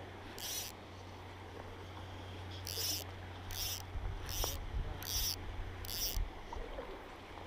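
Fly line being pulled by hand in six short strokes, each a brief high zip, with a pause after the first.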